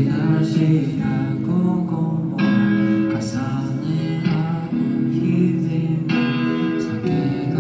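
A song with guitar chords and a singing voice.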